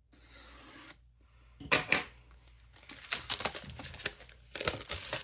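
Stationery and packaging being handled: a quick, irregular run of clicks, taps and rustles begins about a second and a half in, with a couple of sharp knocks soon after and a louder flurry near the end.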